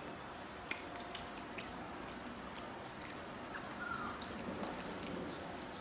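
A hand mixing rice and curry on a steel plate: soft squishing, with a few sharp clicks against the metal in the first couple of seconds, over a steady background hiss.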